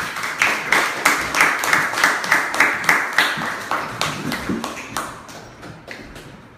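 A small audience clapping, with loud, regular claps close by; the clapping thins out and dies away about five seconds in.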